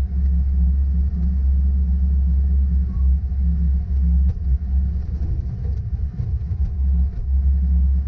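Bobcat S595 skid-steer's diesel engine running with a steady low rumble, heard from inside the cab as the machine drives and plows snow.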